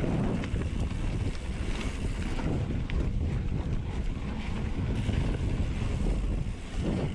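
Wind buffeting an action camera's microphone during a fast mountain bike descent, with the tyres running over a dirt singletrack. It is a steady, heavy rush, loudest in the low end.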